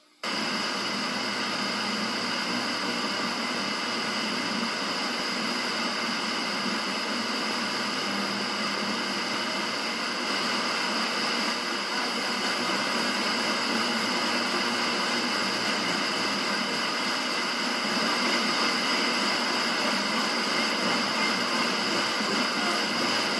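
Steady FM radio static hiss from a Kenwood KMM1012 car receiver fed by a five-element Yagi antenna. The receiver is tuned to a distant 90.9 MHz station that is too weak to be heard, waiting for an aircraft-scatter reflection. The hiss grows slightly louder about ten seconds in and again near the end.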